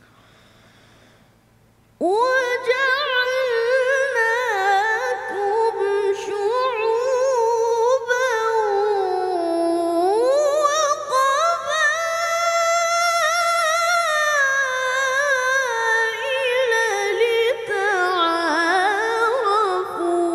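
A boy qari reciting the Quran in melodic tilawah style: one voice holding long, ornamented phrases that glide down and climb back up in pitch. It starts about two seconds in.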